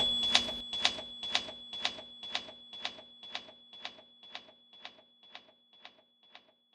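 Sharp mechanical clicks at an even pace of about two a second, growing steadily fainter until they are barely there, over a faint steady high-pitched tone.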